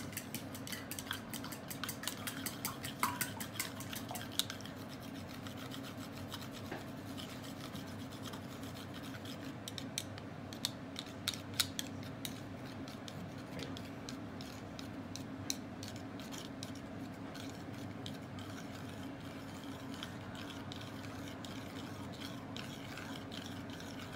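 Wooden chopsticks clicking against a bowl as a raw egg is beaten, with rapid clicking for the first few seconds and then only scattered taps. A steady low hum runs underneath.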